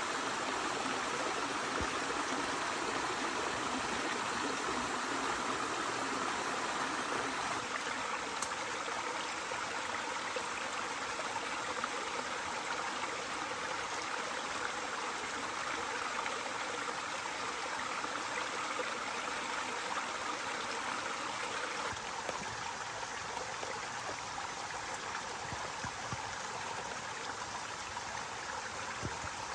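Shallow forest stream flowing steadily over rocks, easing slightly in the last several seconds.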